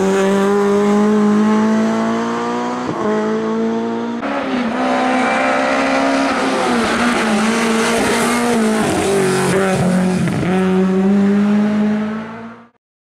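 Lada saloon race car's four-cylinder engine running hard at high revs, its pitch dipping and climbing again several times through the bends. The sound cuts off suddenly near the end.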